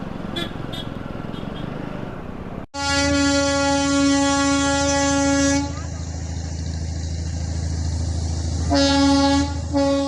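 Darjeeling Himalayan Railway toy train sounding a long steady horn blast, beginning abruptly about three seconds in. A low running rumble of the train continues under it, and a second, shorter blast and a brief toot come near the end.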